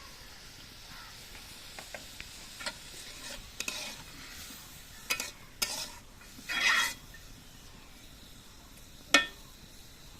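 Chopped onion, green chilli and carrot frying in oil in a kadai with a faint steady sizzle, while a spatula stirs them, clicking and scraping against the pan. A longer scrape comes a little past the middle and a sharp knock on the pan near the end.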